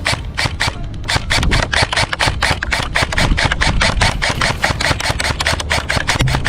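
Airsoft guns firing, a rapid run of sharp shots at about six a second, going on throughout.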